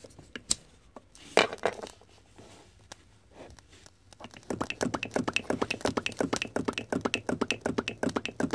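Scratch-built flame licker (vacuum) engine with bronze piston and cylinder, fed by an alcohol wick flame. Its flywheel is flicked over and the engine catches about four and a half seconds in, then runs with a fast, even beat of several strokes a second. A couple of sharp clicks come in the first two seconds.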